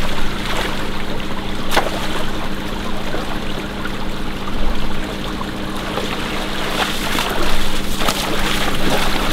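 Shallow stream running over gravel, with a person in waders stepping and splashing through the water and a few short knocks. A steady low hum runs underneath.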